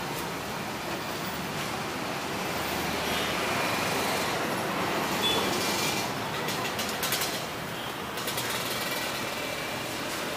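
Steady road traffic noise, with a passing vehicle swelling and fading about halfway through, followed by a few sharp clicks and clatters.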